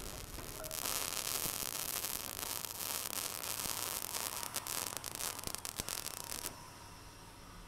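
A steady, dense hiss of static-like noise that starts about a second in and cuts off suddenly near the end, with a few faint clicks inside it.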